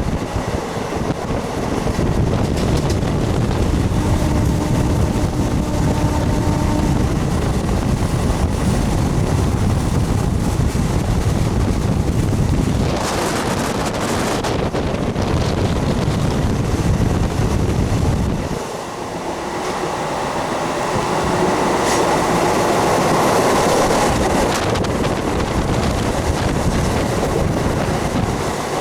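MEMU train running at speed, heard from on board: a steady rumble of wheels on track with wind noise. About two-thirds of the way through, the deep rumble drops away and a higher rushing noise takes over.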